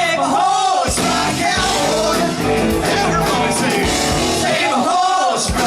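Rock band playing a country-rock song, with a lead line that slides up and down in pitch near the start and again near the end.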